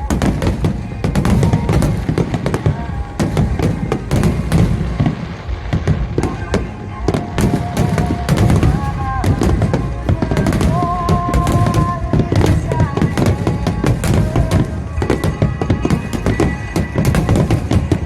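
Fireworks display at full intensity: a dense, unbroken run of shells bursting and crackling, with music playing over loudspeakers underneath.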